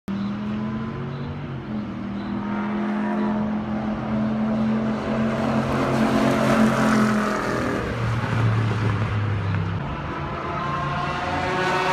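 Race cars on a circuit's straight, their engines running hard as they go past. Several engine notes overlap, shifting in pitch and growing louder about halfway through.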